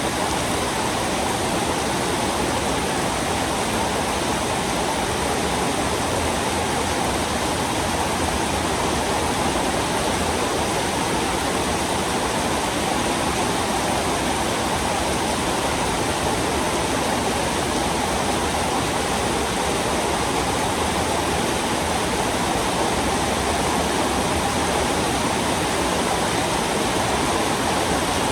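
Heavy rain pouring down steadily, a dense, even hiss of water with no letup.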